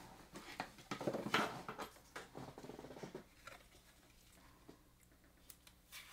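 A trading card in a plastic sleeve being handled and slid into a rigid clear plastic top loader: irregular light rustles and small plastic clicks, busiest in the first three seconds and sparser after.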